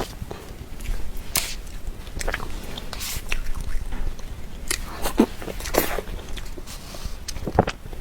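Close-miked eating sounds of soft cream dessert being chewed: irregular wet mouth clicks and lip smacks.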